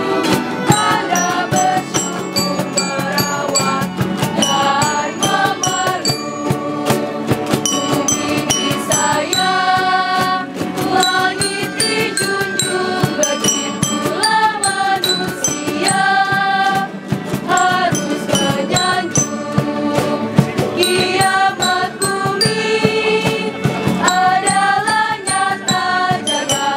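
A choir of young voices singing a melody in long held notes, backed by xylophones struck with mallets, guitars and dense quick percussive taps.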